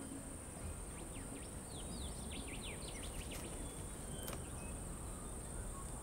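Faint outdoor ambience: a steady high-pitched insect drone, with a run of quick, thin, falling chirps from a small bird about one to three seconds in.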